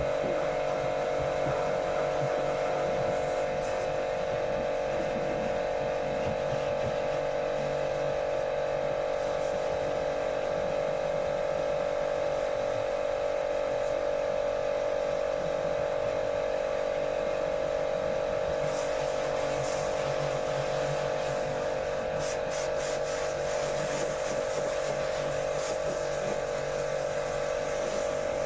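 Car-wash pressure washer's electric motor and pump running with a steady hum.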